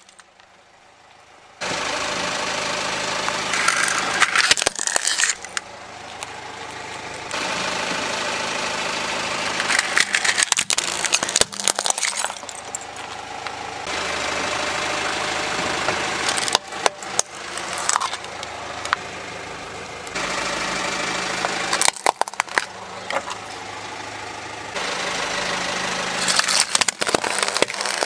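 Car engine running and tyres rolling slowly over concrete as the car drives over plastic toy vehicles. Clusters of sharp cracking and snapping of plastic break out several times as the toys are crushed.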